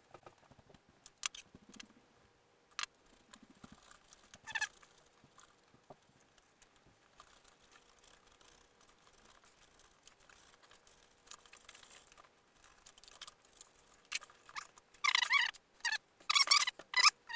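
Scattered light clicks and taps of small parts and wires being handled and set down on a foam model-airplane fuselage and a wooden table, over a faint steady hum. Near the end, a run of short, louder pitched chirps.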